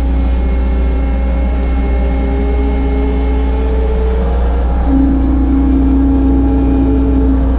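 1988 Bobcat 743 skid steer running while working: a steady low engine hum with a whine that climbs slowly in pitch over the first few seconds, then a stronger, slightly louder whine from about five seconds in.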